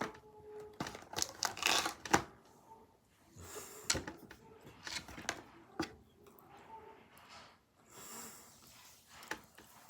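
Irregular small clicks, taps and rustles of a snack package being handled at close range.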